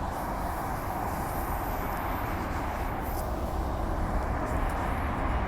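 Inside a Walkers Limited A-series electric multiple unit running at speed: a steady low rumble of wheels on the track with an even hiss of running noise.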